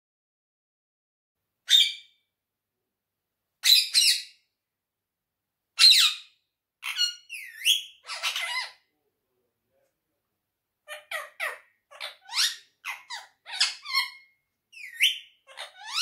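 Indian ringneck parakeet calling: three short, loud squawks about two seconds apart, then strings of quicker chirps and squawks with sliding notes.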